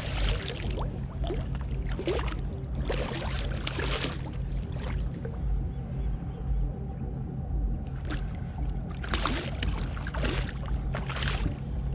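Hooked fish thrashing and splashing at the surface beside a kayak, in a string of short splashes with a lull in the middle, over a steady low rumble.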